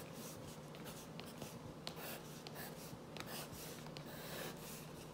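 Wooden pencil scratching faintly on poster board as an outline is sketched, with a few light ticks.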